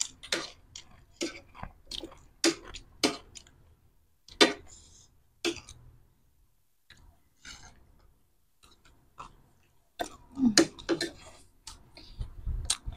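Close-up chewing and crunching of crisp street snacks, with sharp crunches about two a second at first. The crunches then come singly, fade to faint chewing in the middle, and return in a louder cluster near the end.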